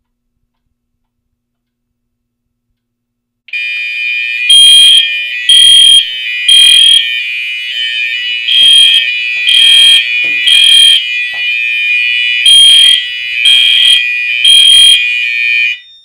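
Fire alarm horns sounding after a rate-of-rise/fixed-temperature heat detector is tripped with a lighter flame. They start about three and a half seconds in and stop shortly before the end. A steady continuous horn tone runs under a louder horn pulsing in temporal code 3: three pulses, a pause, then three again, three groups in all.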